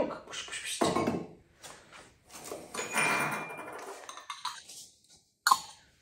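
A stainless steel milk jug and parts of an espresso machine being handled: a knock about a second in, a longer scraping rattle of metal, then a sharp click near the end.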